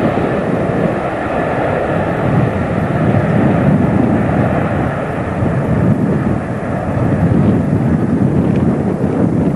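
Airliner engines running loud and steady, a heavy rumble with a higher whine that fades in the second half.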